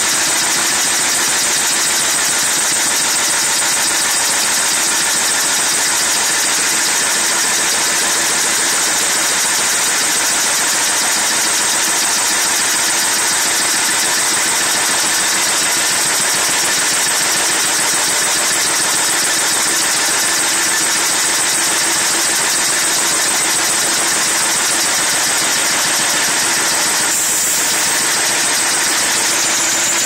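Sawmill saw line running steadily under load as a log is fed through on spiked feed rollers, a loud even mechanical din with a high whine over it. A short clunk comes near the end.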